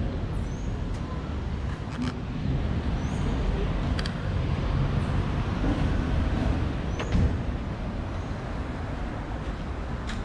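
Street ambience with a motor vehicle passing: a low rumble that swells through the middle and eases off near the end. A few short high chirps and sharp clicks sit over it.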